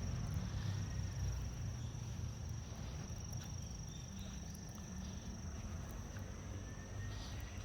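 A steady, high-pitched insect chorus over a continuous low rumble.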